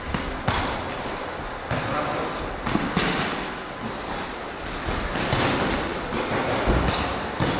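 Boxing gloves thudding and slapping irregularly on gloves, headguards and bodies during sparring, several blows landing at uneven intervals, with voices in the background.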